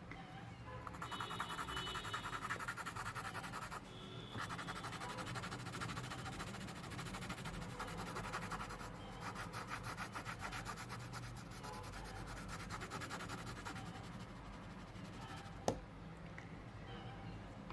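Graphite pencil being sharpened: a steady, fast scraping of the blade shaving the wood and lead, with a short pause about four seconds in and a single sharp click near the end.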